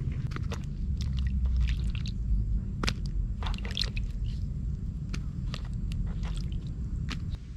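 Wild mushrooms being washed by hand in water: irregular wet squishes and small splashes as they are rubbed and squeezed.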